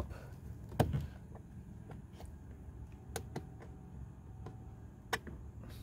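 A screwdriver prying at a car door light and its trim: a series of short, sharp clicks and taps, the loudest a little under a second in, as the light is worked loose from the top.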